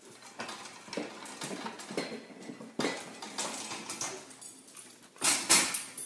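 Metal pet gate rattling and clicking as an animal scrambles against it, with a louder clatter just after five seconds in.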